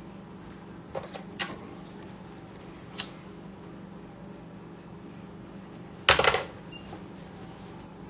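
A hand-held lighter being struck to light a smoke: a few small clicks, then one sharp click of the lighter about three seconds in. About six seconds in comes a louder crackling burst lasting under half a second.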